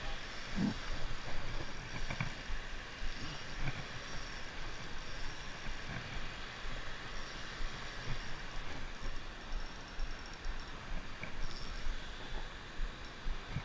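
Steady rumbling noise with a few soft low bumps, typical of handling noise on a body-worn camera.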